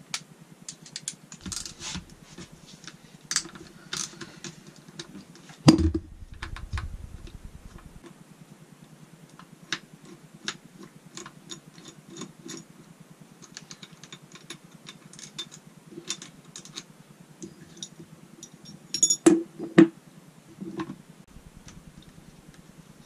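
Small metallic clicks, taps and clinks of tools and parts as the selector mechanism is worked off a Honda five-speed gearbox case. There is a heavier knock about six seconds in, followed by a brief low rumble, and a couple more loud knocks near the end.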